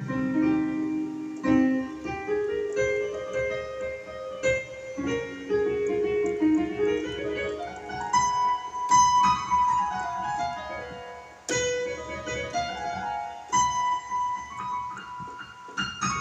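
Piano sound played on a Yamaha Motif ES6 synthesizer keyboard: struck notes and chords, with quick runs that climb and then fall back down.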